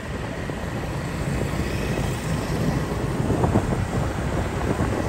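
Steady low rumble of wind on the microphone and road noise while riding along a street, with motorbike traffic ahead.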